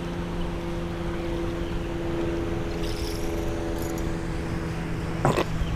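A steady engine-like hum with a few steady tones, fading out near the end, then two short knocks in quick succession near the end.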